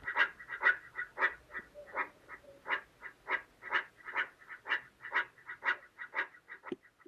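Meerkats giving a run of short chirping calls, about two a second, turning to quicker, fainter ones near the end.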